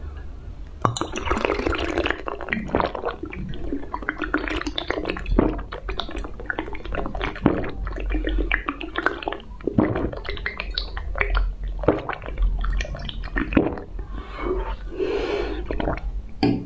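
Close-up wet slurping and sucking of red jelly straight from the glass bird-shaped holders, with irregular mouth smacks and squelches throughout.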